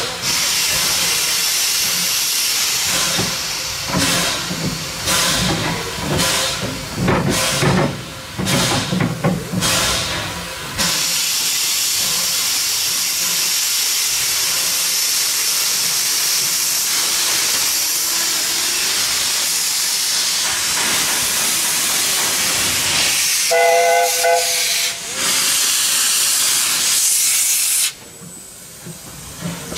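Small 0-4-2 steam locomotive Kilrie in steam: uneven bursts of steam for the first ten seconds or so, then a steady hiss of escaping steam. Near the end a short whistle of several tones at once sounds for about a second and a half over the hiss.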